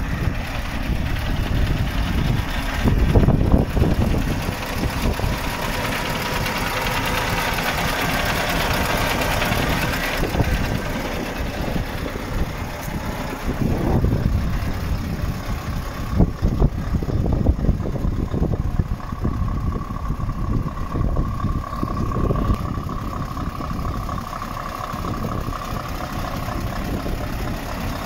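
Scania R520's V8 diesel engine idling steadily.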